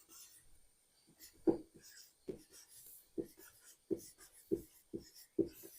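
Faint handwriting: a series of short, separate writing strokes, about one or two a second, beginning after a brief pause.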